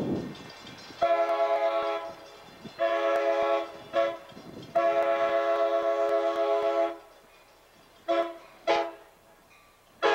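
Approaching passenger train's multi-chime air horn sounding the grade-crossing signal: long, long, short, long. Two short toots follow just after 8 seconds, and another blast starts right at the end.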